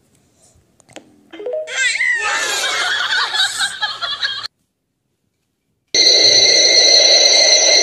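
Dubbed comic laughter effect with a few sliding giggles, cut off suddenly. After a short silence comes a loud, steady electronic tone over a hiss.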